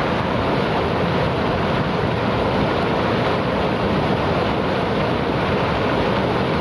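Steady rush of flowing river water, an even noise with no breaks or changes.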